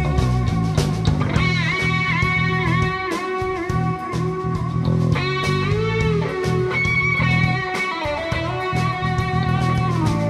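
Live band playing an instrumental jam: an electric guitar lead with sustained notes that bend and slide in pitch, over bass guitar and a drum kit.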